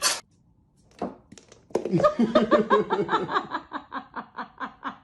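A person laughing hard in a fast, repeated run of "ha" sounds, about five a second, starting a couple of seconds in and slowly getting fainter.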